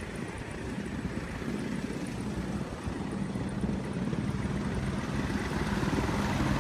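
Steady outdoor engine noise with a wide hiss, growing louder in the second half as a Mercedes-Benz van's engine comes closer and then passes close by near the end.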